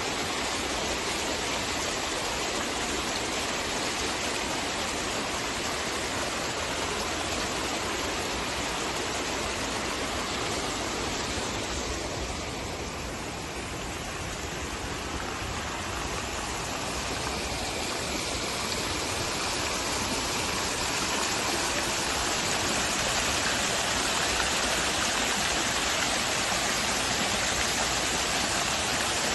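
Fountain jets splashing into a shallow basin: a steady rush of falling water. It dips a little for a few seconds around the middle and grows slightly louder toward the end.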